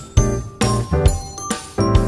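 Background music: a bright melody over a steady beat.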